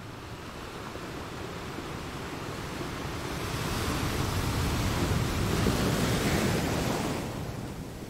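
A rushing noise like surf, building over the first few seconds, filling out most strongly in the middle, and falling away near the end.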